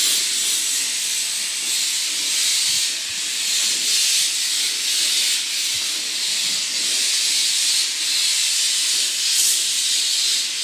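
Brazing torch flame hissing steadily on copper pipe, a loud, even, high-pitched hiss that swells and eases slightly.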